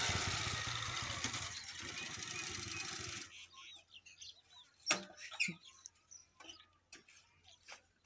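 Small motorcycle engine running as the bike rides over dirt, cutting off suddenly about three seconds in. Then faint bird chirps and a couple of sharp clicks.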